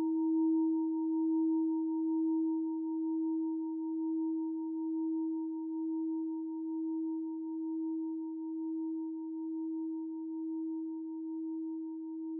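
A single sustained ringing tone with a fainter higher overtone, wavering in loudness about once a second and slowly fading.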